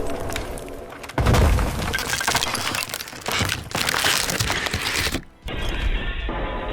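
Crashing and breaking sounds mixed with music, dipping briefly about five seconds in before carrying on duller.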